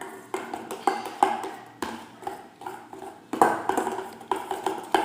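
A spoon stirring slime mixture in a bowl, knocking and clinking against its side in irregular taps with a short ring, a couple of times a second.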